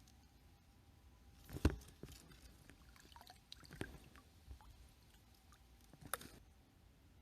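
A few sharp knocks and clicks, the loudest about a second and a half in, with small scraping and handling sounds between them.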